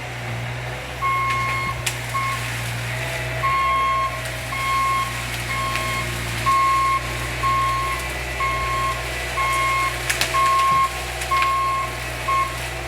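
A vehicle's reversing alarm beeping about once a second, one steady pitch per beep, over a running engine, with a few sharp knocks.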